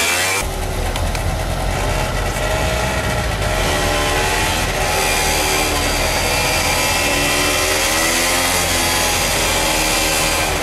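Small motor scooter engine running as it is ridden with two people aboard, its pitch rising and falling with the throttle.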